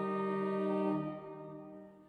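Pipe organ holding a steady chord that fades away over the last second in the church's reverberation.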